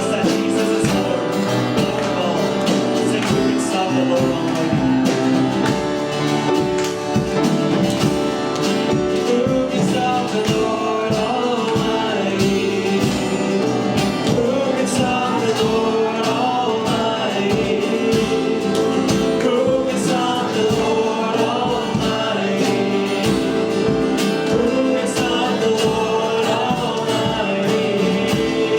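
Live gospel worship music: voices singing a melody over steady instrumental accompaniment.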